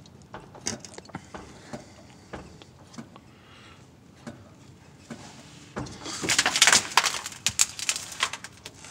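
Scattered light metallic clicks, then about six seconds in a loud, dense run of rapid clicking and clinking as a wrench is put onto the bleeder valve of a clutch slave cylinder.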